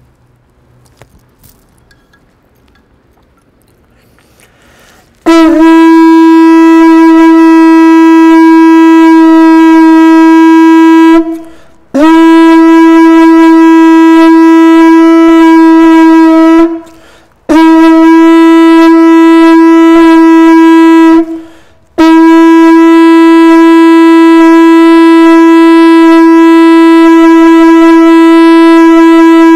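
Conch shell trumpet blown in four long blasts on one steady note, starting about five seconds in. Each blast lasts four to eight seconds with a short break between, and the last is the longest.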